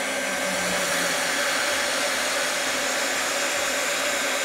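Hot-air plastic welding gun blowing steadily while speed-welding HDPE rod into a tank seam: a continuous rush of air from its blower with a faint steady whine.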